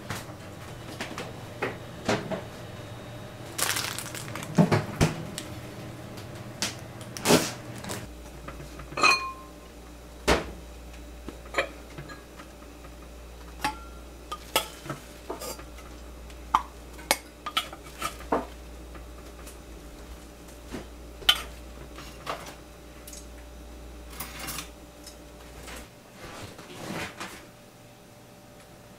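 Irregular knocks and clinks of kitchen pots, lids and tableware as food is served from a tagine and a clay rice pot, with a plastic rice paddle working the rice. One clink about nine seconds in rings briefly.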